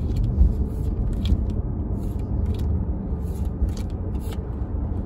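Steady low rumble of a car's interior, with light flicks and rustles of Pokémon trading cards being thumbed through by hand.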